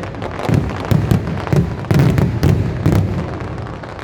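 Aerial fireworks going off in a rapid string of bangs, about two or three a second, thickest around the middle and thinning out near the end.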